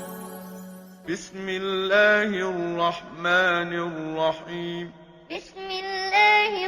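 A man chanting Quranic recitation in the melodic tajwid style, drawing out each phrase in long, ornamented notes with short pauses between them. These are the opening formulas before the surah.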